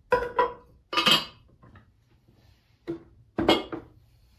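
Ironstone china clinking and knocking as a teapot's lid and body are handled and set down on a table: two quick clinks, a louder clatter about a second in, then a knock and another clatter near the end.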